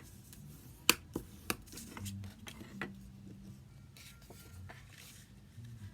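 Cardstock being folded over and creased by hand after scoring: a sharp tap about a second in, then a few lighter clicks and paper rustles.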